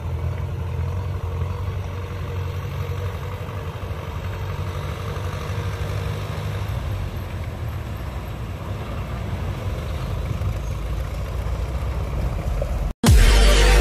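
MTZ Belarus tractor's diesel engine running steadily as it pulls a large trailer, a low drone that holds level. Loud electronic music cuts in near the end.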